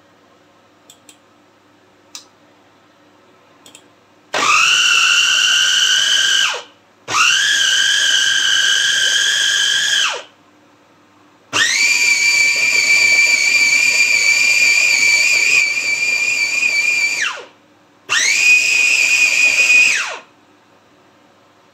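Electric mini food chopper with a glass bowl, run by pressing down on its motor top, grinding cooked broken wheat for haleem. Four pulses of high motor whine, each rising as the blade spins up and winding down when released; the third run is the longest. A few light clicks come before the first run.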